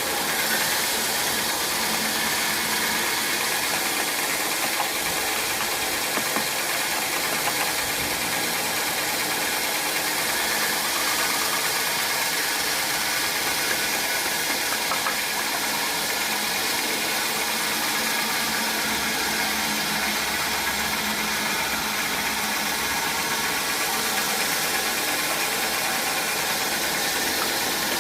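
Sawmill machinery running steadily, a continuous loud mechanical noise with a few steady tones that holds level throughout.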